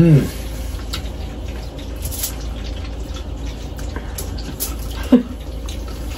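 Eating sounds from a person chewing spaghetti and working a fork on the plate, with a few faint clicks. A short falling vocal sound comes at the start and another about five seconds in, over a steady low hum.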